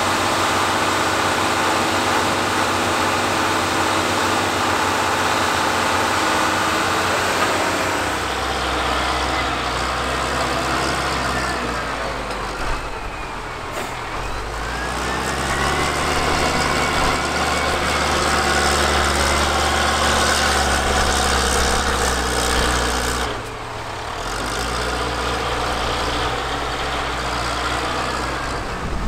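Heavy engines of vintage earthmoving machinery running, the engine note changing several times. There is a heavier, deeper note from about 8 s in, and a short dip at about 23 s.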